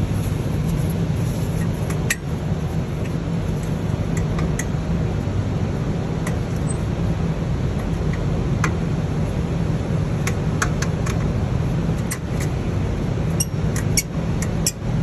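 Scattered small metallic clicks and taps of hand work fitting the pull rod onto a diesel engine's EGR valve actuator, more of them near the end, over a steady low hum.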